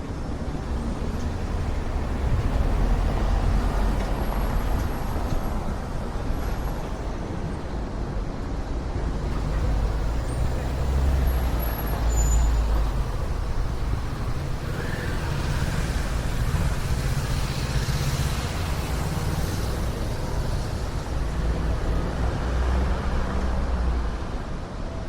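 Wind rumbling in gusts on the microphones of an Insta360 X4 camera fitted with a wind muff, the low rumble swelling and easing every few seconds. A broader hiss rises for a few seconds about two-thirds of the way through.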